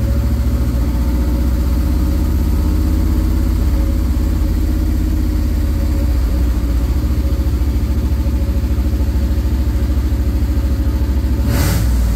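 1975 International dump truck's engine, just converted to Holley Sniper throttle-body fuel injection, running on its own right after starting. It holds a steady high idle that climbs from about 1,500 to 2,400 rpm with the throttle closed.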